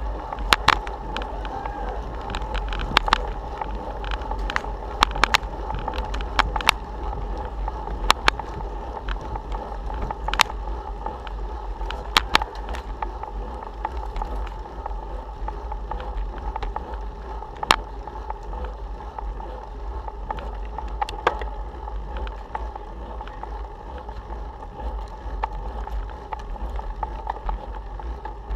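Riding noise from a bicycle climbing a hill: a steady low rumble and hum, broken by irregular sharp clicks and knocks.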